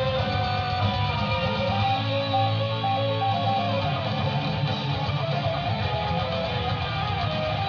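Music led by guitar, with steady strumming and a continuous bass line underneath.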